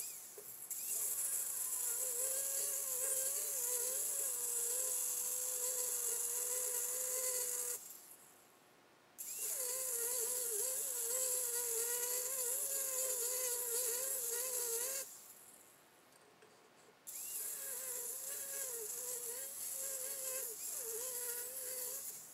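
Angle grinder with an abrasive cutting wheel cutting through steel plate: a high hissing whine whose pitch wavers as the wheel is loaded. It runs in three passes, switched off and winding down about 8 and 15 seconds in before starting again.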